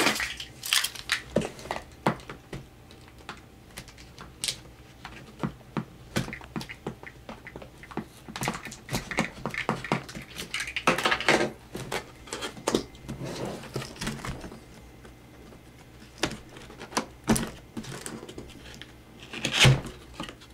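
A netbook's cardboard retail box being opened and unpacked by hand: irregular clicks, scrapes and rustling of cardboard and packing, with a louder rustle near the end.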